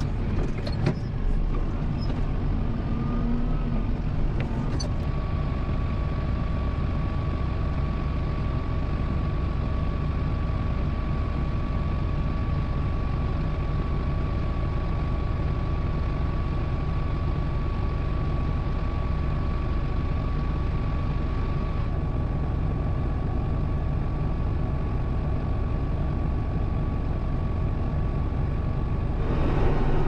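Kubota M7060 tractor's four-cylinder diesel engine running steadily, heard from inside the cab, with a steady high whine over it for most of the time and a few clicks near the start. It gets slightly louder near the end.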